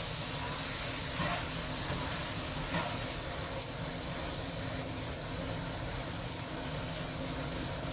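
Sweet potato jelly and scallions sizzling in a wok over a gas flame, a steady rushing hiss, with a couple of light scrapes of the spatula against the wok in the first few seconds.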